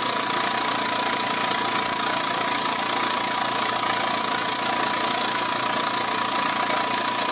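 Small oil-free airbrush compressor with an air tank running steadily: a relatively quiet, even mechanical hum with a high whine over a steady hiss.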